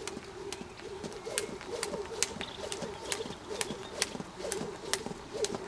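Jump rope slapping the dirt with each turn, sharp clicks about twice a second in a steady rhythm, with doves cooing in the background.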